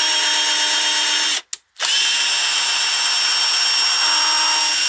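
Electric drill turning an M4 tap to cut a thread into a drilled-out screw hole, its motor running at a steady high whine. It stops briefly about a second and a half in, then starts up again and runs on.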